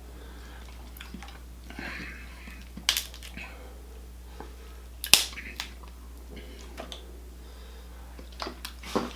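Close-up eating sounds of a seafood boil: chewing and lip smacks with a few sharp clicks and cracks, the loudest about five seconds in, over a low steady hum.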